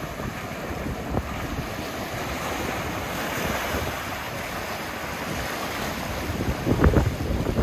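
Ocean surf breaking on a rocky reef, with foaming water washing between the rocks: a continuous wash that swells about halfway through. Wind buffets the microphone with low rumbles.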